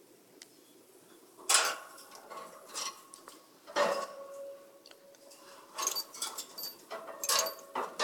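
Metal wire birdcage clinking and rattling: several sharp knocks on the bars and hanging cage fittings, some leaving a brief ringing tone, with a quicker cluster of clinks in the second half.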